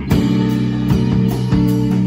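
A live band playing: amplified electric guitars over a drum kit, with sustained low notes and regular drum strikes. The sound drops briefly at the very start, then the full band comes back in.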